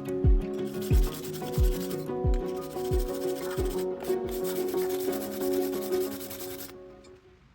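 Metal brush scrubbing rust off the mounting surfaces of a steel brake caliper bracket, a steady rasping scrub that stops abruptly near the end. Background music with a deep, dropping bass beat plays along.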